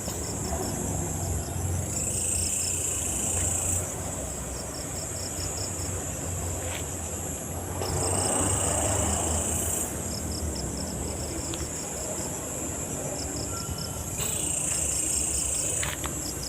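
Night insects chirping: crickets repeat quick trains of short, even pulses over a steady high-pitched drone, with a low rumble underneath.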